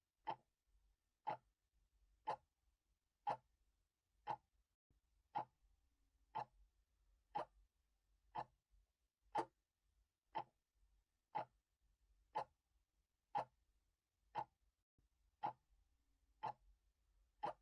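A clock-like timepiece ticking steadily, one sharp tick a second.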